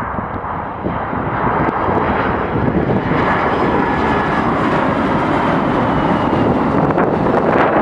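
Boeing 767-300 airliner's jet engines on landing approach, passing low overhead: a loud rushing jet noise that grows steadily louder, with a faint high whine in it.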